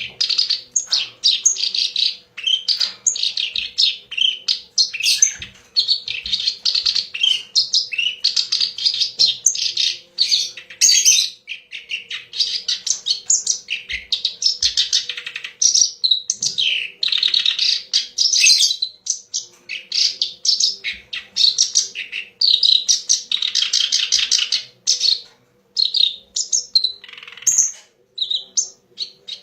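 Kerak basi (reed warbler) singing: a loud, fast, chattering run of varied notes in long phrases with brief pauses, becoming more broken near the end.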